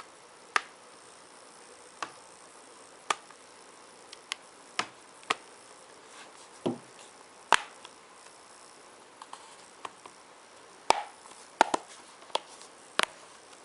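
Plastic back cover of an Acer Iconia W4 tablet being pressed back on, its clips snapping into place around the edges: a string of sharp clicks and snaps at irregular intervals, a few closer together in the last few seconds.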